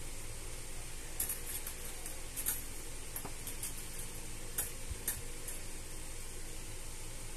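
A scattered run of light clicks and ticks lasting about four seconds, starting a second in, from cats pawing at an open umbrella and moving around under it, over a steady background hiss.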